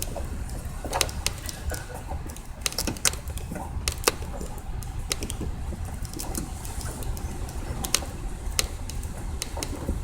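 Irregular light clicks and knocks of fuel pump assembly parts being handled and fitted together, over a steady low rumble.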